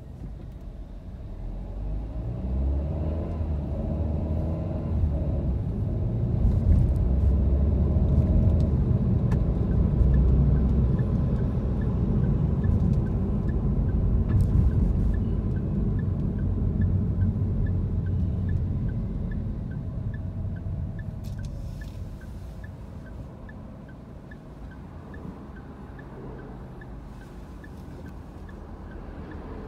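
Car driving, heard from inside the cabin: low engine and road rumble builds as it pulls away, is loudest in the middle and eases off toward the end. A faint, regular ticking joins about a third of the way in.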